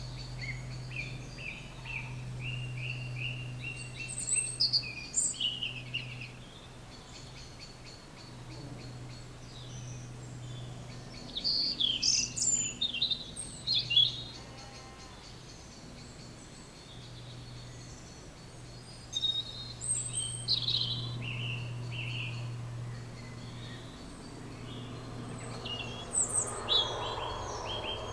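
Songbirds singing in separate bursts of quick chirps and trills, loudest about halfway through, over a steady low hum.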